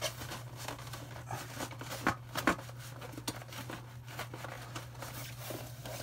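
Cardboard box and packing being handled and tugged as a humidor wedged tightly inside is worked at: soft rustling with two sharp knocks about two seconds in, over a steady low hum.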